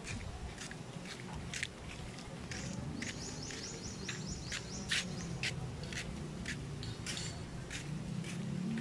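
Outdoor ambience with light, sharp clicks at an even pace of about two a second, a short high trill about three seconds in, and a low steady hum underneath.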